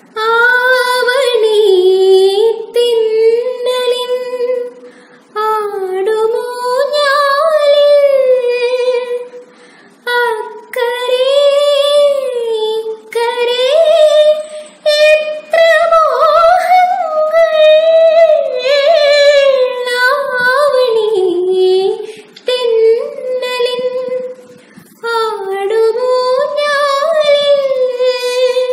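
A young woman singing solo and unaccompanied, in phrases a few seconds long separated by short breath pauses; the voice starts at the very beginning.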